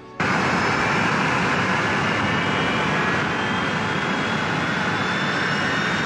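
Jet airliner engines running loud and steady, a dense rush of noise with thin whining tones that climb slowly in pitch. The sound cuts in abruptly just after the start.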